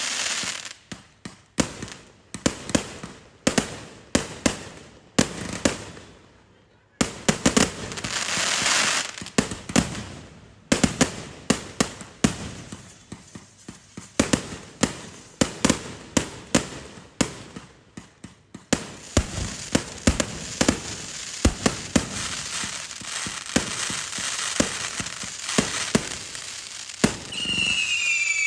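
A 200-shot firework finale cake firing in quick succession: sharp bangs several a second, some trailed by crackling, with a brief lull partway through. Near the end a whistle slides down in pitch.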